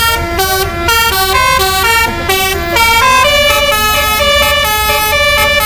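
Basuri telolet musical horn on a tour bus playing a tune of stepped notes: short alternating notes at first, then longer held notes from about three seconds in.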